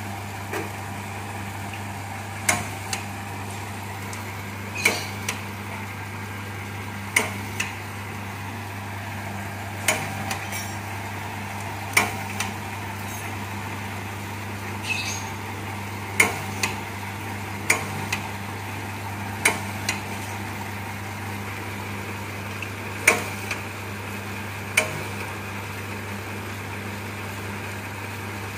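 Bamboo satay-skewer machine's electric motor running with a steady hum, with sharp wooden clacks about every two seconds, most followed by a lighter one, as bamboo strips are fed into its splitting and shaving rollers.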